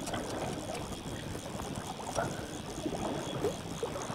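Splashing and trickling water as a hooked fish, which the angler takes for a sea trout, stirs the surface close in while it is played.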